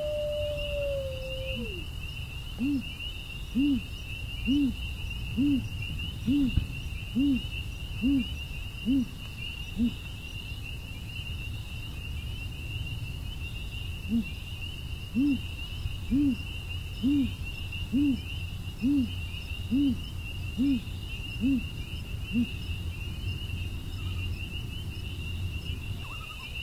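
An owl hooting in two evenly spaced runs of short low hoots, about one a second, the first beginning a couple of seconds in and the second about halfway through, over a steady chorus of crickets and the low rush of a brook. Near the start a long held low tone slides down and fades out.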